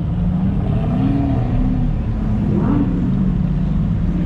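Car engine running steadily as a low, even drone, without revving, with a couple of brief higher tones over it about one and two and a half seconds in.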